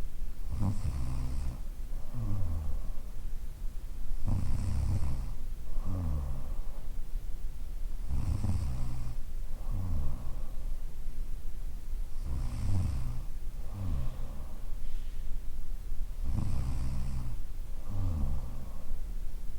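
A woman snoring in her sleep: a low snore on each in-breath, followed by a breath out that drops in pitch. The cycle repeats evenly, about once every four seconds.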